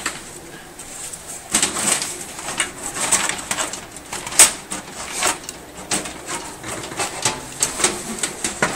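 Irregular clicks and knocks of a component being handled and pushed into place inside a computer case while its screw holes are lined up, with one sharper knock about halfway through.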